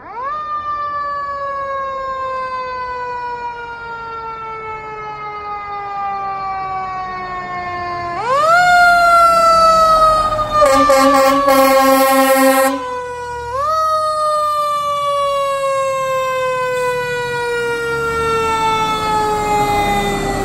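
Fire engine's mechanical Q siren winding up quickly and then slowly coasting down in pitch, wound up again about 8 and 13 seconds in, growing louder as the truck approaches. About halfway through, the air horns sound one steady blast lasting about two seconds.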